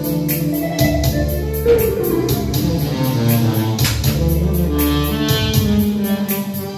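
Live instrumental band music: saxophone, electric guitar and keyboard playing together over a steady beat.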